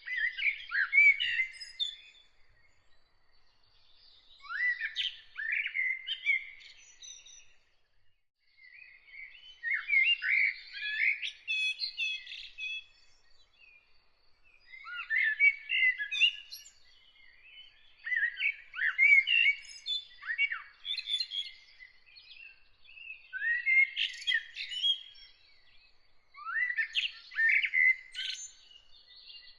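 A songbird singing in a series of separate phrases, about seven in all, each a second or a few seconds of quick, varied whistled notes with falling sweeps, with short pauses between them. A fainter, even string of high notes runs underneath.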